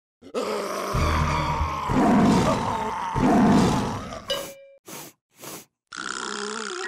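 A zombie growl: a long, deep, rough monster-style roar that swells twice, followed by three short bursts of sound. Music starts about six seconds in.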